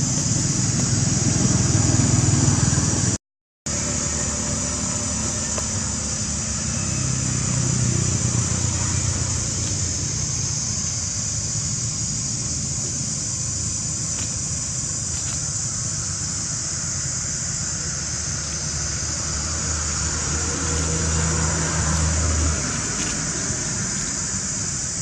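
Steady outdoor background with a low engine-like hum and a constant high hiss, cutting out for a moment about three seconds in.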